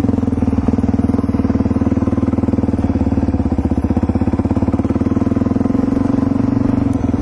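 Suzuki DR-Z400E dirt bike's single-cylinder four-stroke engine running at a steady, even engine speed while being ridden, heard close up from the rider's helmet.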